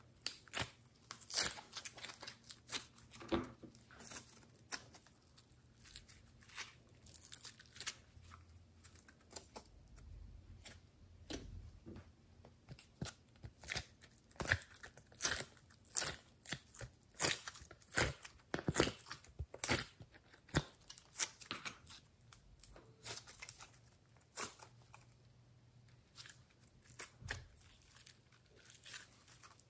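Hands squishing and pressing wet, sticky slime and soft clay, the slime making irregular sharp clicks, pops and crackles. Near the end the mixed slime is pulled and stretched.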